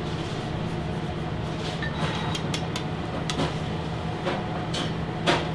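Steady low hum of commercial kitchen ventilation, with scattered light clicks and taps of utensils.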